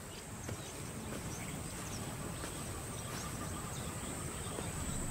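Bush ambience: insects droning at one steady high pitch over a low rumble, with a few faint ticks.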